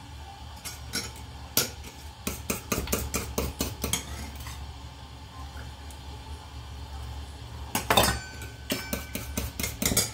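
Stainless steel bowls and dishes clinking and clattering as they are handled and set down on the counter, in two flurries of clicks about a second in and again near the end. A low steady hum runs underneath.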